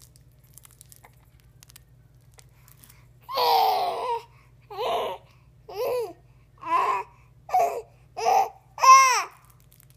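Baby babbling: starting about three seconds in, one longer high-pitched vocal sound followed by six short ones in a steady rhythm, the last the loudest.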